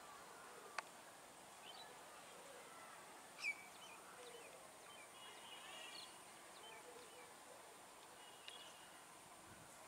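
Quiet outdoor ambience with faint, scattered bird chirps and trills; the loudest is a short falling chirp about three and a half seconds in. A single sharp click comes just under a second in.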